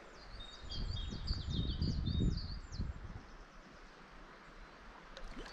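A small songbird sings a quick series of high, down-hooked notes through the first three seconds, with a few more near the end. Under it, a low rumble of wind on the microphone swells in gusts during the first half.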